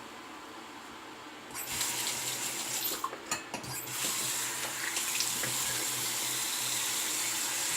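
Water tap turned on at a sink about a second and a half in, then running steadily into the basin, with a brief break in the flow and a few clicks about three seconds in.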